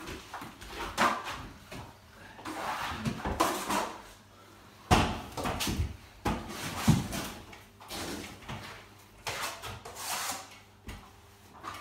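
Steel plastering trowels spreading wet gypsum multi-finish plaster over a wall: repeated scraping swishes of uneven length, with a few sharper knocks.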